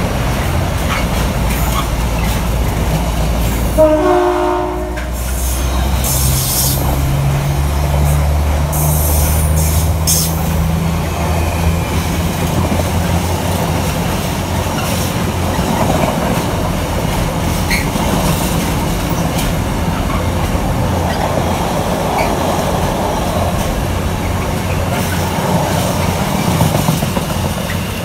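A container freight train's wagons roll past, wheels clattering and rumbling steadily on the rails. A short train horn blast sounds about four seconds in.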